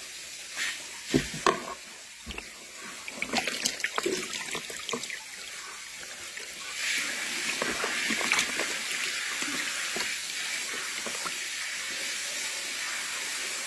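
Water splashing and dripping in a tub as hands scoop up and lift handfuls of guppies, in scattered splashes at first; about halfway through a steady rush of running water takes over.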